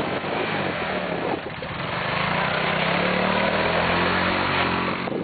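200cc four-wheeler (ATV) engine running; its revs pick up about two seconds in and hold higher, rising slightly.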